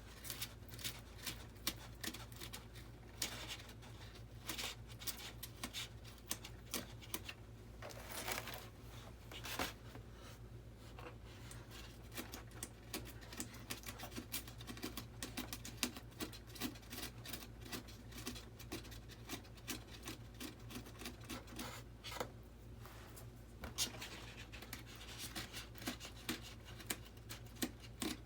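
Hand tools scraping and rubbing on the model's foam airframe: quick, irregular scratchy strokes, a few longer ones now and then, over a steady low hum.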